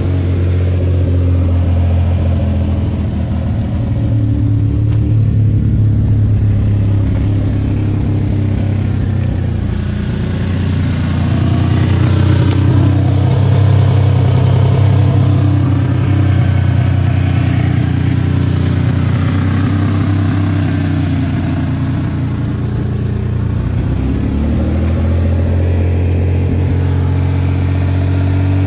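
Vehicle engine running through its first warm-up in months on a freshly installed radiator, its speed rising and falling several times, loudest around the middle.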